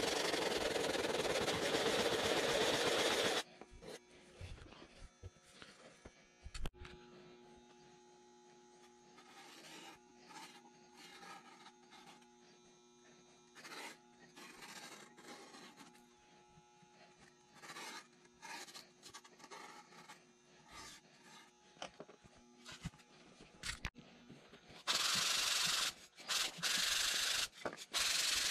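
Sanding block rubbing on pink foam insulation board, a steady rasp for the first few seconds. Then a long quiet stretch of light taps and handling, and near the end the sanding starts again in three or four short strokes.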